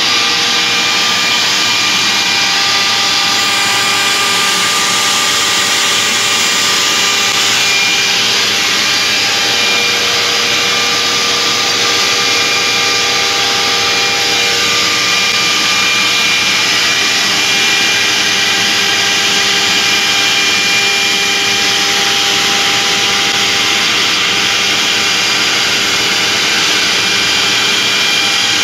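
OMNI 1325 CNC router spindle cutting through a green board sheet, with dust extraction drawing through the hose at the spindle: a steady, loud whirring rush with several steady whining tones held through it.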